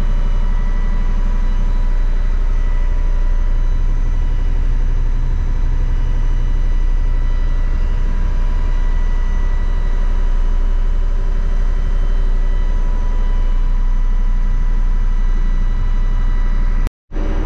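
A boat's engine running steadily while underway, heard from inside the wheelhouse as a loud, even rumble with a steady hum over it.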